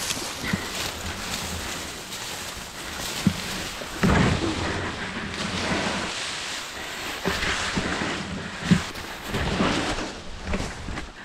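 Long grass and reed leaves rustling and scraping across the microphone as someone pushes through dense undergrowth. The rustle swells and fades, and a few sharp knocks on the microphone stand out, the loudest about four seconds in and near nine seconds.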